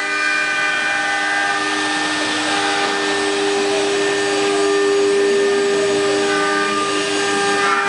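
Multi-spindle 4-axis CNC wood router, eight spindles carving wooden workpieces at once: a steady whine of several spindle tones over the hiss of the cutting.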